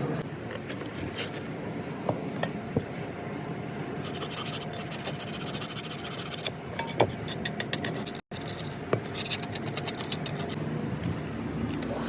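Scraping and rubbing on metal in quick, rasping strokes, as rust and old finish are worked off the parts of a vintage Stanley bench grinder, with a brief break about eight seconds in.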